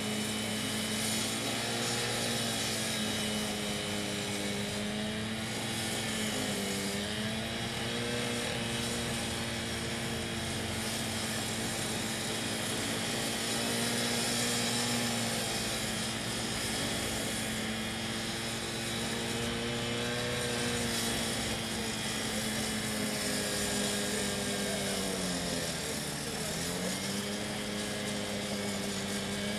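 An engine running steadily at a constant speed. Its pitch dips briefly twice, about a quarter of the way in and again near the end, as if it is taking load, then comes back up.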